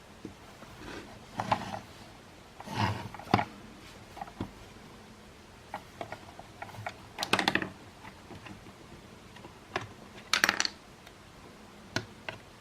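Parts of a Makita CL108FD cordless vacuum being handled during disassembly: scattered clicks and four short clattering rattles, the last two with a metallic jingle.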